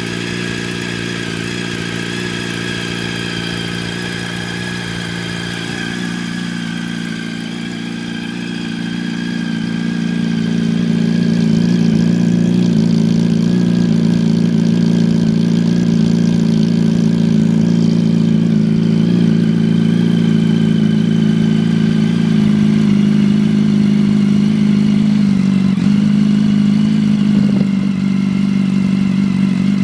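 2006 Yamaha R1's inline-four idling through an Arata full titanium exhaust while warming up. About ten seconds in the sound grows louder over a few seconds, then runs steady.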